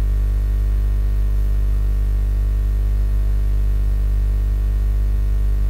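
Loud, steady electrical mains hum with a buzzy stack of overtones and a layer of static hiss, unchanging throughout.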